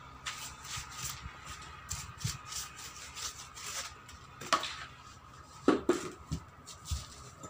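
Short rubbing and scraping strokes on a tractor tyre and its steel rim as the bead is lubricated, with a few sharper knocks a little past halfway.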